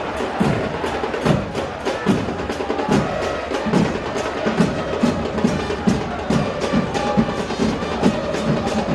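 Fans' drums in the stands beating a fast, steady rhythm, with the crowd singing along.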